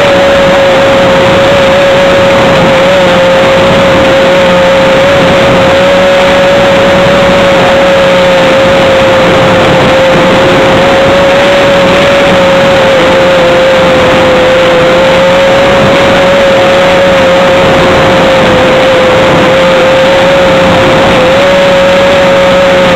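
An RC model airplane's motor and propeller run steadily at one constant high pitch, heard from a camera on board the model in flight, with heavy wind rush.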